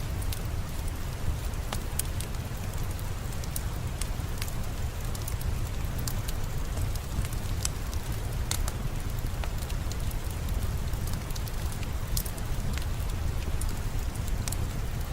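Steady rain falling, with a fireplace crackling over it: sharp pops at irregular intervals.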